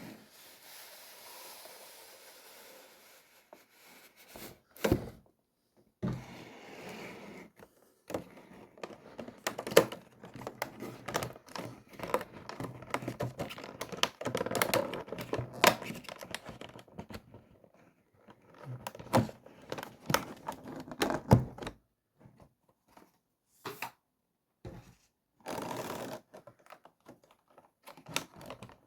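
A model locomotive being taken out of its packaging: a cardboard box and inner plastic packaging handled, with irregular clicks, taps, scrapes and crinkling, broken by a few short pauses.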